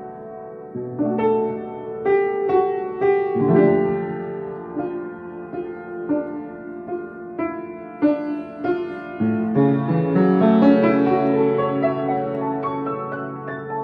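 Piano playing a slow, melodic piece: single notes struck one after another and left to ring over lower held notes.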